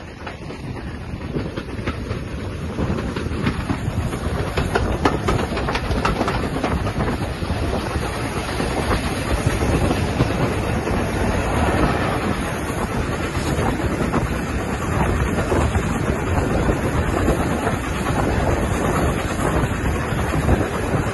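Passenger train carriage running on the rails, heard from beside the carriage: a steady running noise with wheels clattering over the rail joints, growing louder over the first few seconds and then holding steady.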